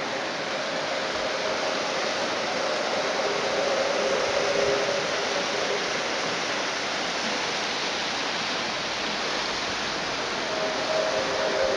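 Steady rushing noise with faint, long, drawn-out droning tones over it: two or three notes held together, swelling from about a second in and fading by about six seconds, then coming back near the end. These are the unexplained sounds that the recorder first took for a resonance in the mountains.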